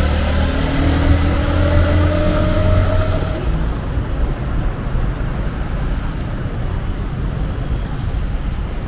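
Street traffic: a motor vehicle passes close by, its engine note rising in pitch over the first three seconds, then a steady rumble of traffic.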